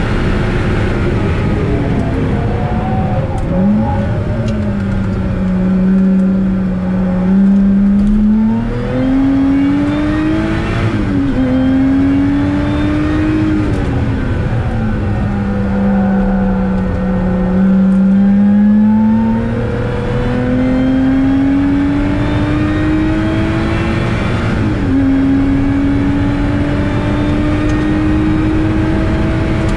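Lotus Exige S V6's supercharged 3.5-litre V6 heard from inside the cabin at full race pace. The revs climb through the gears, with sudden drops at upshifts about 11 and 25 seconds in. They fall away twice as the car brakes for corners, near the start and again around 14 seconds, before building up again.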